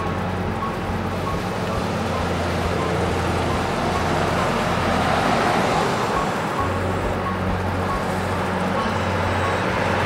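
Road traffic on a street: cars passing close by, the noise swelling as vehicles approach.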